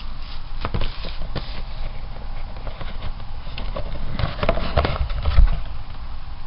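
A cardboard model-kit box and the clear plastic bags of parts inside it being handled: crinkling and scattered small knocks, with a few heavier thuds about four to five seconds in.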